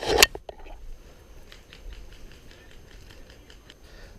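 A short louder rustle at the very start, then faint quick ticks several times a second: an airsoft player's footsteps while running.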